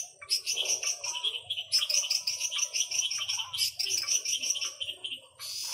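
Night chorus of tropical frogs and insects: dense, rapid high chirping repeating several times a second, with sharper clicks scattered through.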